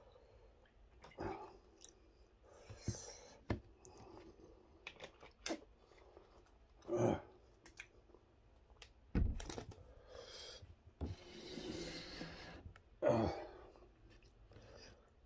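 Intermittent eating and table-handling sounds: chewing, small clicks and rustles as a plastic water bottle and dishes are handled, and a low thump about nine seconds in.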